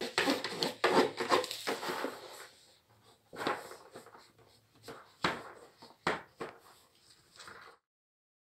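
A dog foraging for its food: its snout rummaging through the fleece strips of a snuffle mat with a dense rustling, then nosing into a cardboard box with short scraping and bumping sounds. The sound cuts off abruptly near the end.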